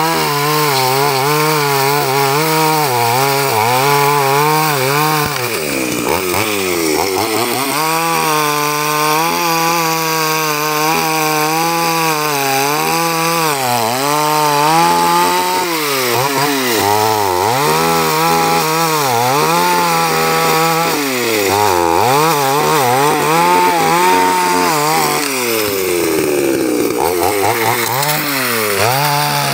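Two-stroke 3800-class chainsaw fitted with a 5200 carburetor, cutting through a tree trunk. The engine pitch repeatedly sags as the chain loads up in the wood and climbs back as it frees, with a deeper sag and recovery near the end.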